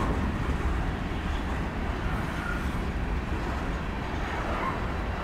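Covered hopper cars of a freight unit train rolling past: a steady rumble of steel wheels on the rails, with a couple of faint short squeals about halfway through and near the end.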